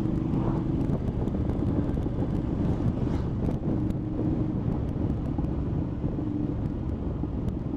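Triumph motorcycle engine running steadily at cruising speed on the open road, with wind rushing over the helmet-mounted camera's microphone.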